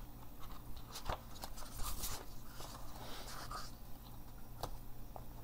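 A picture book being opened and its pages turned by hand: soft paper rustles with several light clicks and taps from the cover and pages.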